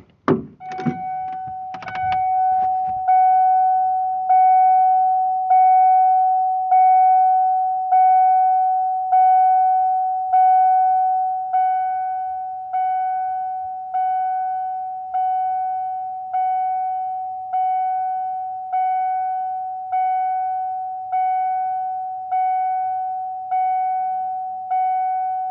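1992 Ford Ranger STX's dashboard warning chime ringing one bell-like tone over and over, about one strike every 1.2 seconds, each strike dying away before the next. A few sharp clicks come in the first two seconds.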